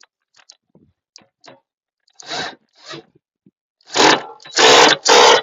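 Impact wrench run in short bursts, tightening the blade bolts on a mower's blade spindle: two softer bursts a little over two seconds in, then louder bursts from about four seconds in. Light clicks of handling come before.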